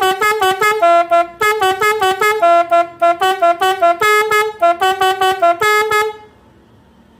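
Three-trumpet basuri horn playing a quick repeating tune of short notes on a few pitches. It stops suddenly about six seconds in.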